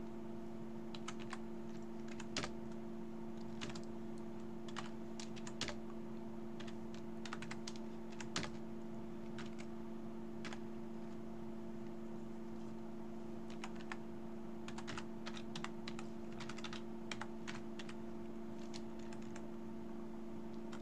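Typing on a computer keyboard in irregular runs of keystrokes with short pauses, over a steady low hum.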